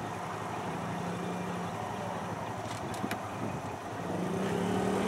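Motor vehicle engine idling steadily, its low tone swelling a little after about four seconds, with one sharp click about three seconds in.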